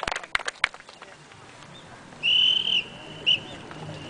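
A few last hand claps die away, then a whistle sounds: one steady blast of about half a second and a short blip just after. It is a drill signal, as the line of kneeling rifle cadets rises to attention.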